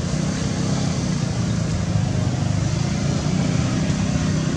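Steady low rumble of background traffic noise, with no monkey calls standing out.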